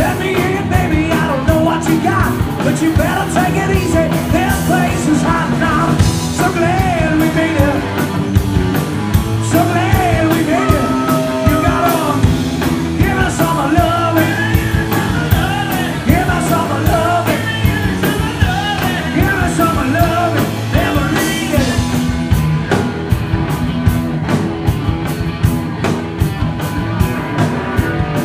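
Live rock and roll band playing a song, with a singer over guitar, bass and drums. The vocal line drops out near the end, leaving the band playing on with a steady drumbeat.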